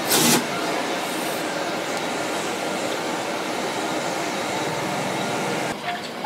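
High-pressure gas wok burners running with a steady rushing noise. There is a brief loud burst of noise right at the start.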